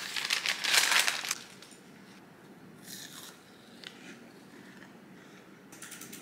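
A knife cuts and prises a piece of frozen yogurt bark off crinkling parchment paper in a dense crackle. This is followed by a few faint crunches as the piece is bitten and chewed.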